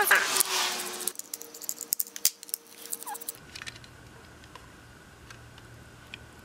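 A screwdriver scraping as it turns a screw out of a small plastic toy radio-control transmitter, then scattered small clicks and taps as the plastic case is pulled apart, stopping a little past halfway.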